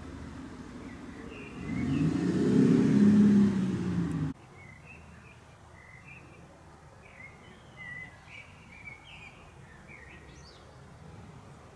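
A car passes close by, its engine note rising and then falling, and is cut off abruptly about four seconds in. After that, small birds chirp repeatedly in short calls.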